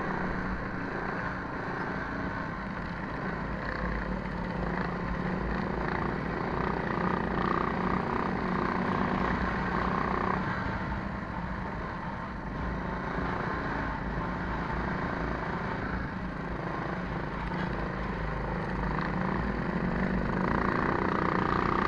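Small single-cylinder minibike engine running at speed, its pitch wavering with the throttle and getting louder near the end, with wind rumble on the microphone.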